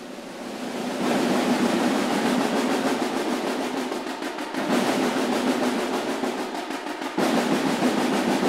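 A row of about a dozen snare drums played together in a dense, continuous massed roll. It swells over the first second, then steps up suddenly louder about halfway through and again near the end.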